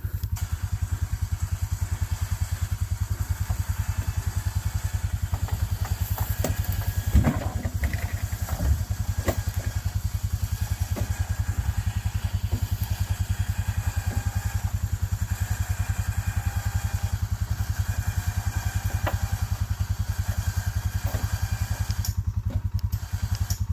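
Small engine running steadily with an even, fast putter, with a few sharp knocks and clatters about seven to nine seconds in.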